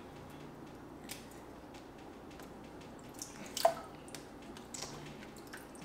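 Water dripping and squelching in a bowl as thawing cooked shrimp are handled by hand in cold water and their tails pulled off. There are scattered faint ticks and one louder splash about three and a half seconds in.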